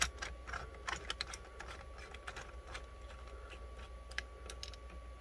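Scattered light clicks and taps of 3D-printed plastic parts as they are handled and pressed together by hand.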